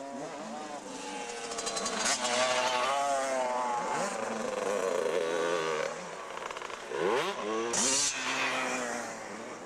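80cc two-stroke motocross bikes running on the track, their engine pitch rising and falling as they are ridden, with a sharp rev-up about seven seconds in. A brief hiss about eight seconds in.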